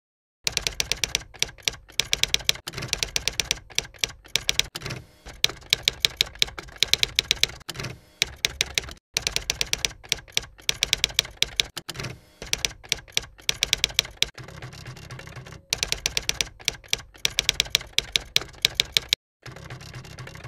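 Typewriter keys clacking in quick runs of keystrokes, with short pauses between the runs.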